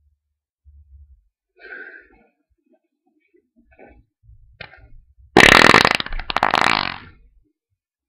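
A loud, long, fluttering fart that starts suddenly about five seconds in and lasts almost two seconds before tailing off: a 'ripper'.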